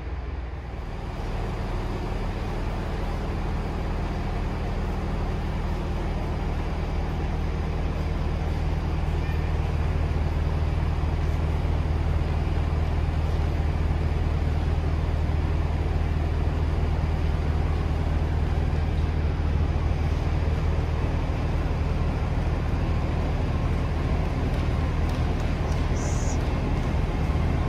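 A train's engine runs with a steady low hum under a station trainshed. It grows a little louder over the first several seconds, then holds even.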